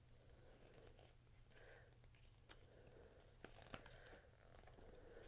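Near silence with faint paper rustling and a few soft clicks as a small folded paper poster is unfolded by hand.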